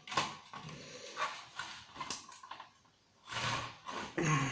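The plastic casing of an old set-top TV recorder being forced and snapped apart by hand: several sharp cracks and creaks, then a longer straining creak near the end.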